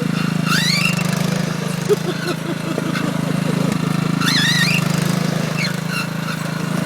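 Lawn mower engine running steadily, with short high-pitched squeals that rise and warble over it, one about half a second in and another around four seconds in.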